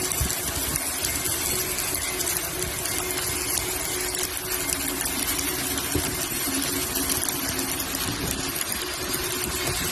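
Electric arc welding: the arc gives a steady crackling hiss while a weld bead is run, over a faint steady hum.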